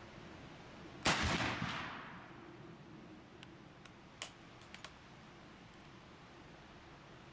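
Mauser Model 1871 rifle firing one shot about a second in, the report dying away over about a second. A few light clicks follow a couple of seconds later.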